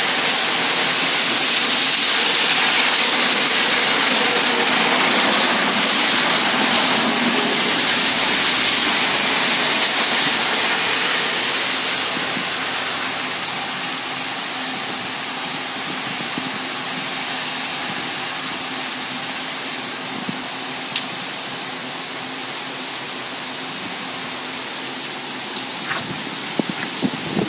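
Heavy rain pouring in a thunderstorm: a dense, steady hiss that eases a little about halfway through, with a couple of sharp taps.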